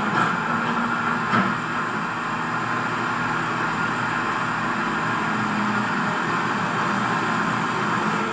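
Radio-controlled CAT 336D scale excavator's motor and hydraulic pump running with a steady whine, with two short clicks in the first second and a half.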